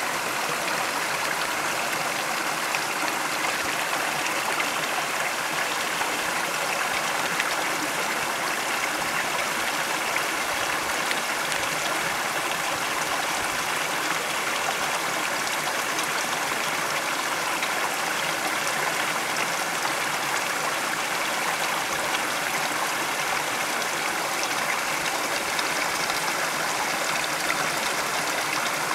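Shallow stream water running steadily over rocks and leaf litter, an even rushing trickle with no breaks.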